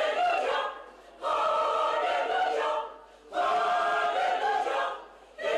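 A choir singing in short phrases, each about a second and a half long, with brief breaks between them.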